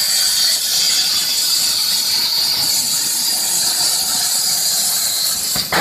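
CNC plasma cutter torch cutting metal plate: a loud, steady hiss of the plasma arc and its air jet. The hiss breaks sharply right near the end.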